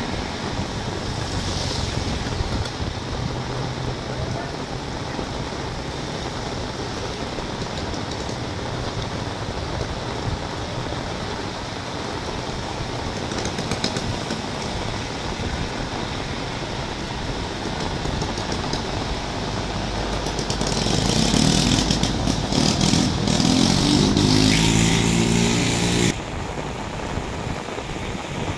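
Heavy rain falling steadily on a wet road. From about 20 seconds in, a vehicle engine grows louder and rises in pitch over a loud splashing hiss of tyres through standing water, then cuts off suddenly about 26 seconds in.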